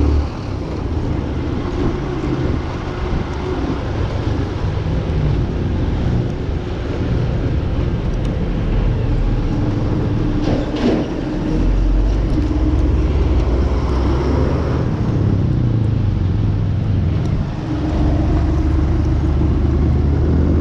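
Motor vehicle driving: steady engine and road rumble, with the engine note shifting as it goes.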